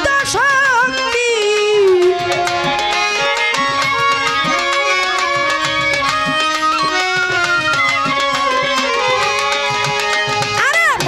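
Instrumental interlude of a Bengali Baul song: a violin plays the melody over hand-drum accompaniment. A long note slides downward in the first two seconds before the violin settles into held and repeated notes.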